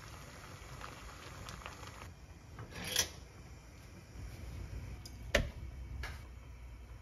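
Light handling sounds in a quiet room, with a sharp click or tap about three seconds in and a louder knock a little past five seconds.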